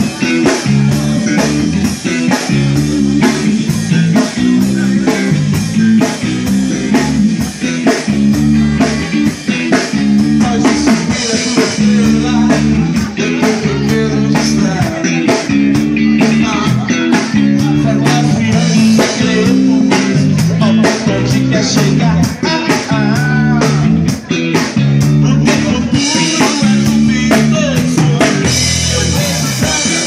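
Live band playing a song: electric bass line, electric guitar and drum kit, with a singer's voice over them. It goes on without a break.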